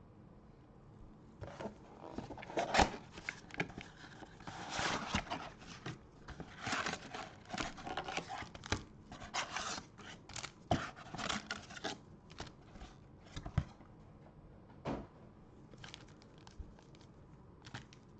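Trading-card packaging being torn open and crinkled by hand: irregular rustling and tearing bursts of wrapper, easing after about twelve seconds into scattered light clicks and taps of handling.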